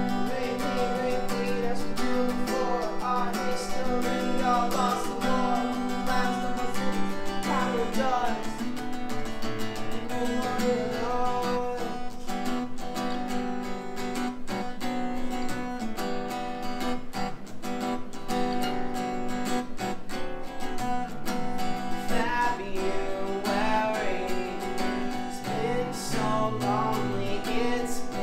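Acoustic guitar strummed and picked, with a man singing over it in places.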